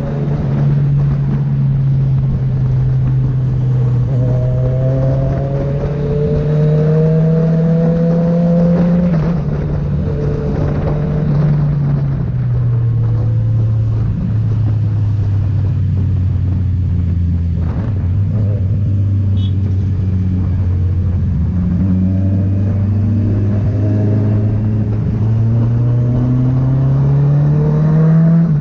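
Kawasaki Z900's inline-four engine running through a Firetong aftermarket exhaust, its steady note rising and falling slowly with the throttle. The pitch climbs over the first several seconds, drops about twelve seconds in, holds low, then climbs again near the end.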